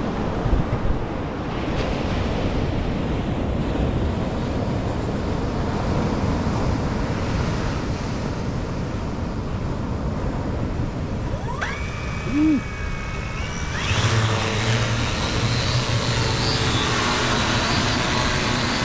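Surf and wind on the microphone, then about twelve seconds in the motors of a Cuta-Copter Trident fishing drone spin up with a rising whine. The drone settles into a louder steady hum as it lifts off from the sand carrying its baited rig.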